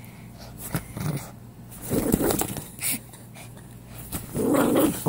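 Small dog growling in play while tugging on a toy, in two rough growls, one about two seconds in and a longer one near the end, with rustling of bedding between.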